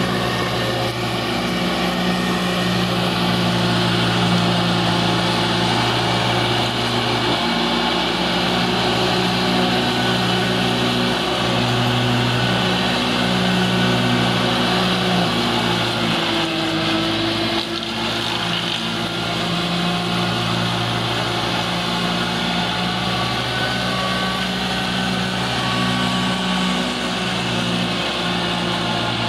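Tractor engine running steadily under load, driving a four-blade PTO swing-arm rotary mower that is cutting grass, with a brief dip in level a little past halfway.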